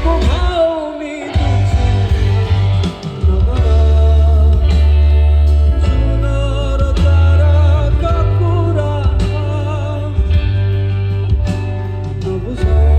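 Rock band playing through a PA system at a sound check: a singer with a wavering vibrato over guitar and a heavy, steady bass line.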